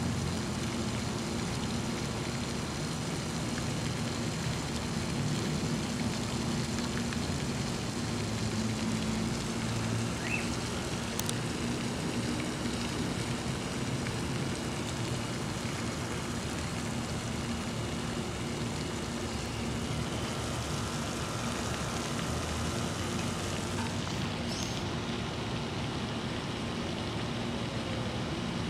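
Steady rushing outdoor background noise with a low hum underneath, and a few faint brief chirps.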